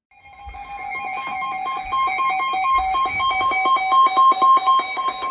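Electronic alert tone: two pitches beeping in quick alternation with a steady pulse, growing louder.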